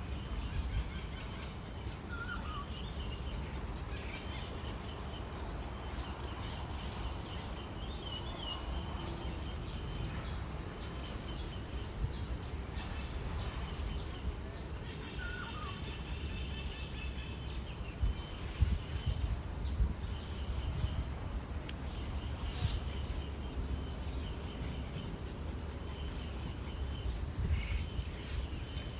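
Cicadas singing in a continuous, steady, high-pitched chorus. Scattered short bird chirps and calls come and go over it, including a couple of quick whistled glides.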